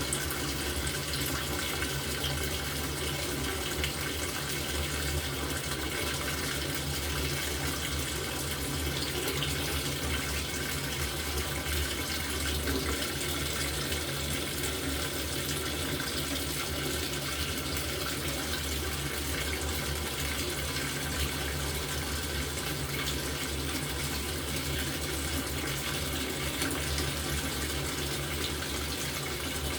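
Water pouring steadily into the tub of an LG top-loading washing machine as it fills, with a steady low hum under it.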